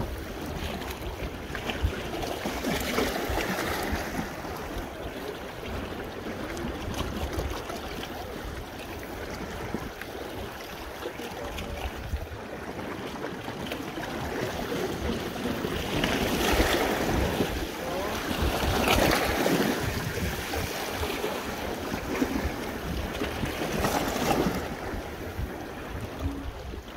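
Wind blowing across the microphone over small waves washing against a rock breakwater. The noise swells and fades several times in the second half.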